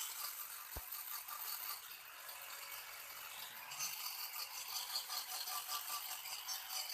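Steady rattling mechanical noise.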